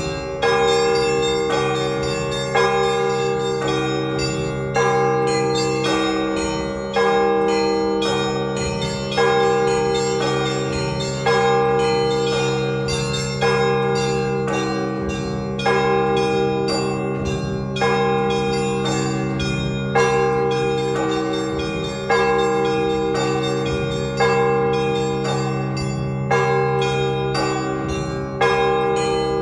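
Russian Orthodox church bells rung together in a full peal (trezvon) at the end of a service. Small bells chime rapidly over a heavier bell struck about every two seconds.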